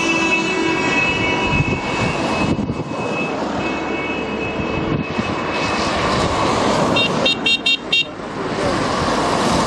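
Car horns honking in a wedding car convoy as the cars drive up: one held blast fading about a second in, another in the middle, then a quick run of short toots near the end, over the noise of engines and tyres.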